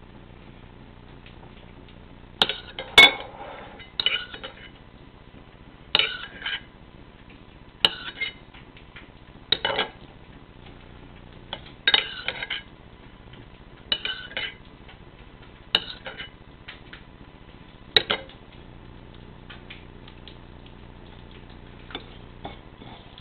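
Wet slaps of a fish cake patty being tossed and pressed between two palms to shape it. The slaps come in short clusters of two or three about every two seconds, and die away near the end.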